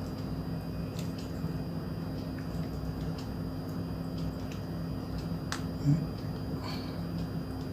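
Scattered faint clicks of plastic parts being handled and pried apart, with one louder knock about six seconds in, over a steady low hum.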